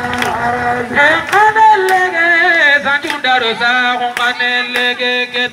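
A voice singing a drawn-out, wavering chant through a microphone and loudspeaker, with a few sharp claps.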